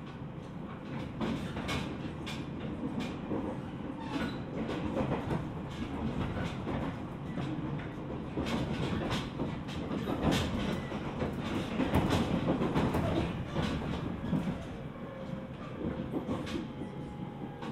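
Inside a JR East 701-series electric multiple unit running on the line, heard from the front of the car: a steady rumble of wheels on rail with frequent, irregular clicks and knocks from the rail joints, loudest about two thirds of the way through.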